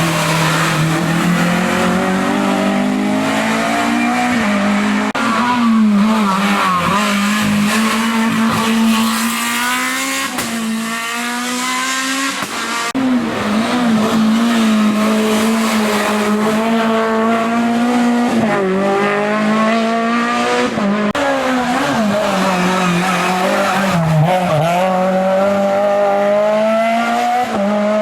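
Race car engine at full throttle on a hill-climb course, revving hard for the whole time. Its pitch drops sharply and climbs again many times as it shifts gear and brakes for bends.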